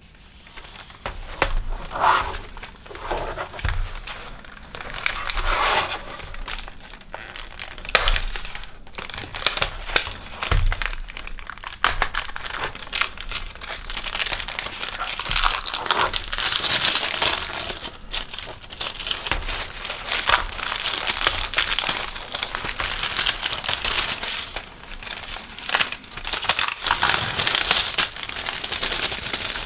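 Thin clear plastic bag crinkling and rustling as it is handled, on and off at first and almost continuously in the second half.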